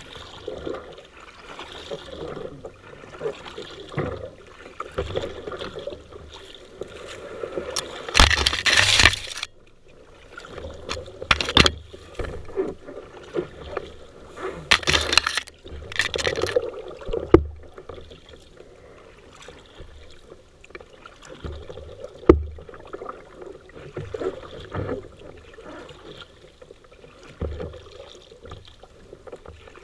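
River water splashing and gurgling close to the microphone, with two louder splashes (one about eight seconds in, another about fifteen seconds in) and a few sharp knocks.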